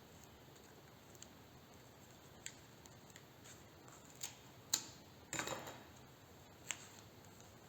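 Duct tape being handled: a few sharp clicks and crackles, and a short rasp of tape pulling off the roll or peeling away about five seconds in.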